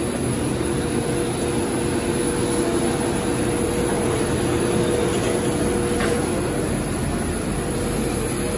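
Steady running noise of a vehicle: a low rumble with a constant mid-pitched hum.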